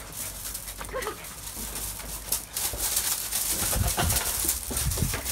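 Dutch Shepherd puppies at play on gravel: a short whine about a second in, then their paws scuffling and crunching on the gravel, with a few dull knocks.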